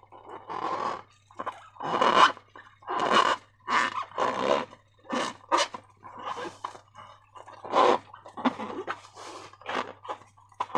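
Slime being squeezed and worked by hand, giving a run of irregular wet squelches about once a second.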